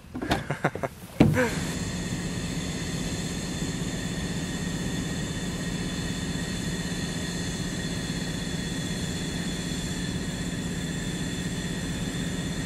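Oil and gas facility machinery running: a steady industrial drone with a low hum and a high whine, starting suddenly about a second in.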